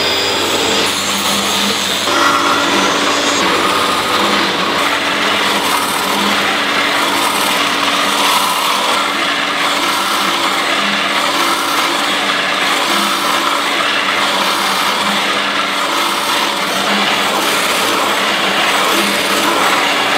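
Loud, steady machinery noise from coil-spring making plant, a harsh dense rush with a faint low pulse about every two seconds. It starts and cuts off abruptly.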